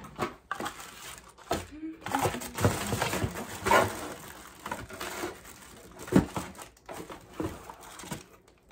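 Cardboard boxes and packaging being handled: rustling, crinkling and scattered knocks, with one sharp thump about six seconds in.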